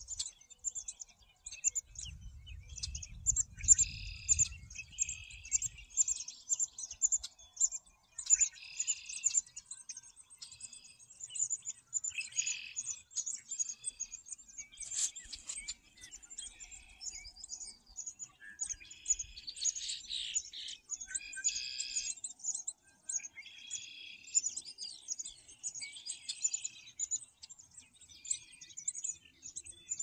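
A chorus of several songbirds singing and calling over one another. High, thin chirps repeat throughout, and fuller song phrases break in every few seconds.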